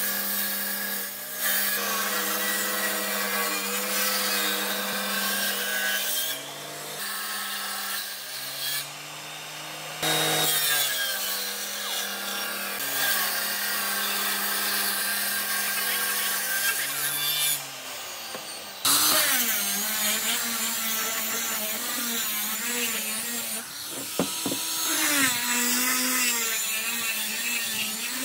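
Table saw cutting old railway-sleeper hardwood in several passes, with short breaks between cuts. About 19 seconds in, it gives way to a handheld angle grinder with a sanding disc running over a sleeper board.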